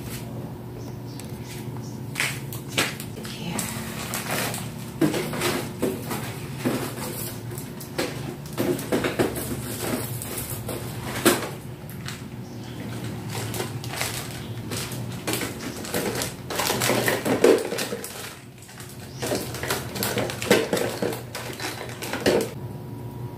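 Packs, bottles and containers being moved about on the shelves of an open refrigerator: repeated knocks, clatter and plastic crinkling, in busy spells, over a steady low hum.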